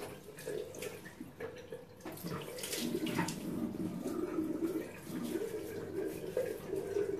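Water splashing at a bathroom sink as a face is rinsed by hand, with irregular splashes.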